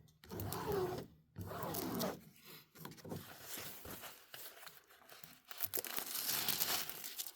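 Plastic wrapping and a diamond painting canvas crinkling and rustling as they are handled and straightened out. The rustling is loudest over the last two seconds.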